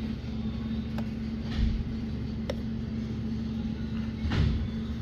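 Ford F-150 engine idling with a steady hum, running rough from a cylinder 3 misfire. Two low thumps come about a second and a half in and near the end.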